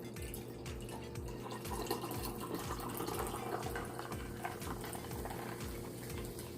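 Close-up wet eating sounds: chewing with many small wet mouth clicks.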